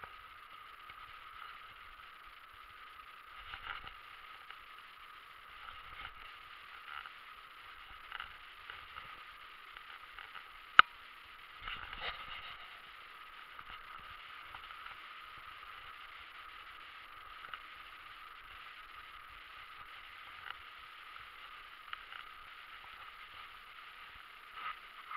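Steady rush of fast-flowing river water, with scattered faint clicks from the spinning reel being cranked and one sharp click about eleven seconds in.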